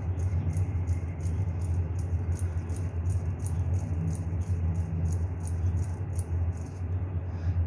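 Quick, evenly paced scraping strokes of kerokan over the skin of the chest, about three strokes a second, stopping about seven seconds in. A steady low hum runs underneath.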